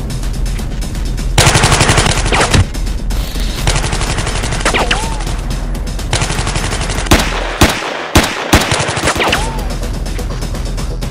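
Rapid machine-gun fire added as a film sound effect, with electronic music running underneath. The firing turns loud about a second and a half in, is broken by a short gap a little past the middle, and carries a couple of brief sliding whines.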